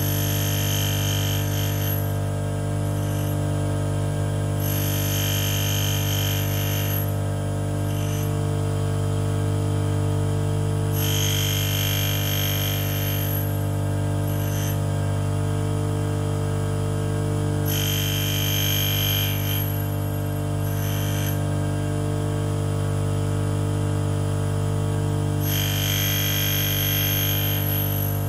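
Union tool and cutter grinder running with a steady motor hum, its grinding wheel taking five light passes across the end cutting face of an endmill, each a hiss about two seconds long, roughly every six seconds. Each hiss is the wheel in contact and cutting; he is listening for the point where it stops cutting.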